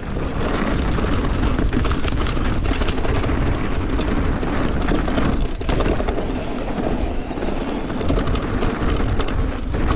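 Mountain bike riding down a dirt trail at speed: a steady rush of wind noise and tyre roar, broken by frequent clatters and knocks as the bike rattles over roots and bumps.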